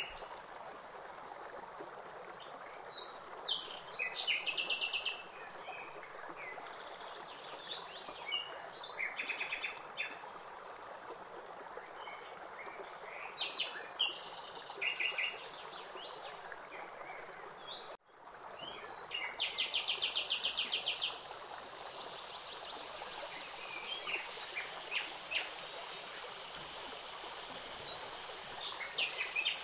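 Birds chirping in short, rapid trills over a steady rushing hiss. The sound drops out abruptly for a moment about 18 seconds in, then the hiss comes back brighter.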